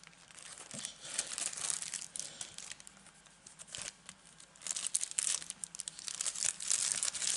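Thin clear plastic packaging crinkling as it is handled around sheets of clear stamps. There are two spells of crinkling, with a short lull in the middle.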